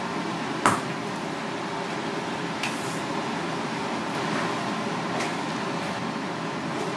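Steady fan-like room noise, with a sharp tap about a second in and a few fainter taps later as wooden chopsticks knock against a ceramic plate of fried fish.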